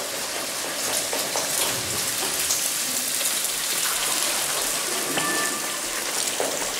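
Steady sizzling of batter poured into a hot frying pan on a gas stove.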